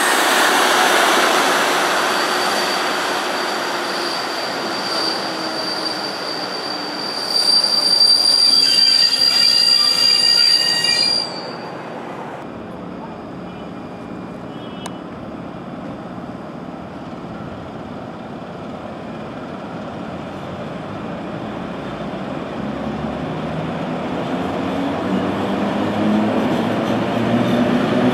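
Passenger coaches rolling along the platform track with a high squeal that cuts off suddenly about eleven seconds in. Then a Polish ET22 electric locomotive approaches, its motor hum rising in pitch and growing louder toward the end.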